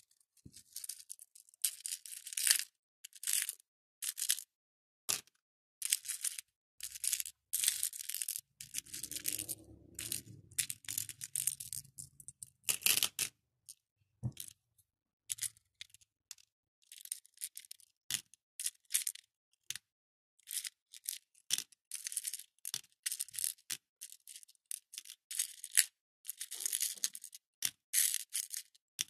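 Small plastic and faux pearl beads with a few metal charms rattling and clicking inside a small round clear plastic container as it is shaken and stirred by fingers, in many short irregular bursts. A soft low rumble of handling joins in for a few seconds around the middle.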